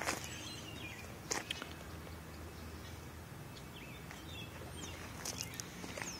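Outdoor ambience with a steady low hum, small birds chirping now and then in short falling calls, and a few sharp clicks, one near the start, one about a second and a half in and one about five seconds in.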